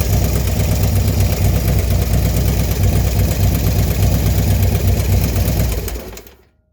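Small engine with a newly installed 110 kit idling, with the clicking noise that appeared after the kit went in. It dies away about six seconds in.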